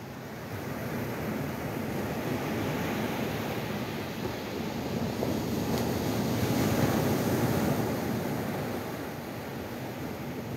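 Ocean surf washing onto a sandy beach, a steady rushing that swells as a wave breaks about two-thirds of the way through, then eases.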